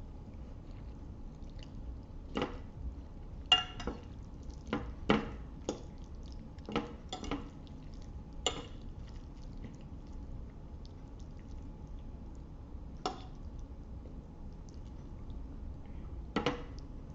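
Cutlery clinking against a plate while eating spaghetti: about a dozen sharp clinks, some with a short ring, mostly in the first half, then two more, one near the end.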